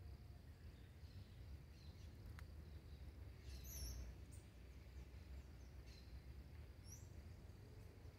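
Faint garden ambience: a steady high insect drone under a low rumble, with a bird chirping briefly about three and a half seconds in and again near seven seconds.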